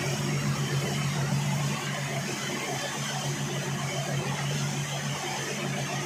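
Silage baler-wrapper machine running, turning a round silage bale while it wraps it in stretch film: a steady mechanical hum with a low drone.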